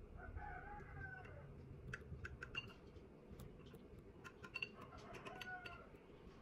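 A chicken calls faintly twice, each call about a second long, near the start and again about five seconds in. Between the calls there are light clicks of a knife against a ceramic dish as it slices.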